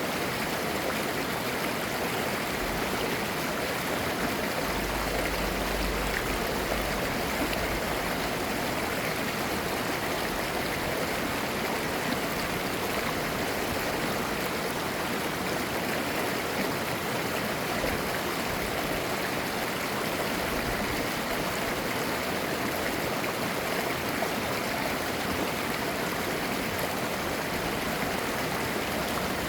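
Mountain stream flowing over rocks, a steady rushing and babbling of clear water.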